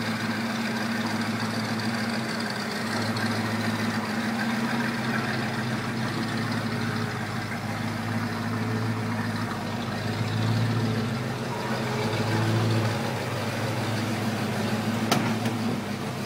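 1965 GMC Suburban hot rod's engine idling steadily, its level rising and falling a little at times. A single sharp click comes near the end.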